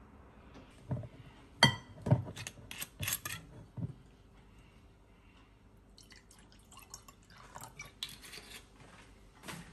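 A glass cup set down on a countertop with a sharp ringing clink, followed by a few knocks as a glass bottle is handled and opened. About six seconds in, liquid is poured from the bottle into the glass, a fluttering trickle with little glugs.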